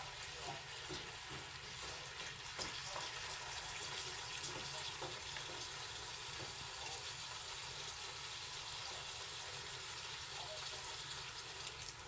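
Food frying for sukiyaki in a pan: a steady sizzle with small scattered crackles.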